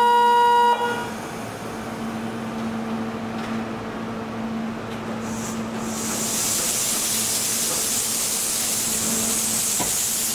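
A loud steady buzzer-like tone cuts off less than a second in. The standing Kintetsu 12200-series express electric train then hums steadily with its onboard equipment running. From about six seconds in a loud hiss of air sets in, the air brakes releasing as the train gets ready to pull away.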